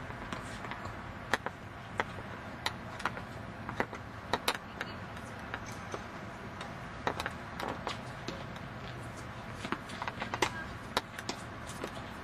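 Tennis ball impacts on a hard court: a string of sharp, irregular pops from racket strikes and ball bounces, with a cluster around the serve and another late in the rally.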